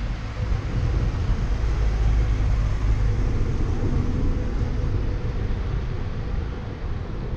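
A motor vehicle passing close by: a low engine and road rumble that swells in the first couple of seconds, holds, then eases off near the end.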